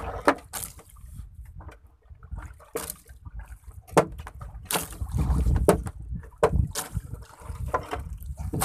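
Scattered sharp knocks and clicks over a low rumble and water sounds, the rumble loudest about five to six seconds in.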